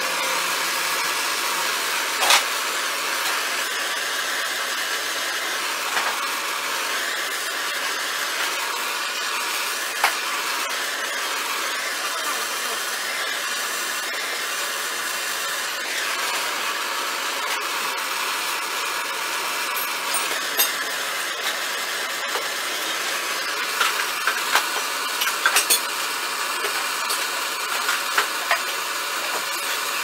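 Handheld gas torch flame hissing steadily as it heats a steel saw blade, with scattered small clicks and crackles, several close together near the end.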